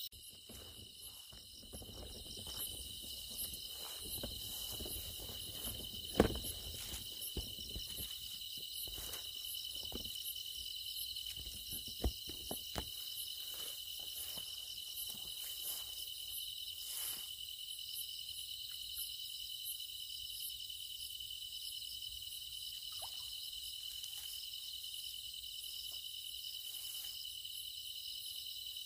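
A steady chorus of night insects chirring in the grass, a constant high-pitched drone. A few scattered soft knocks and rustles sound over it, the sharpest about six and twelve seconds in.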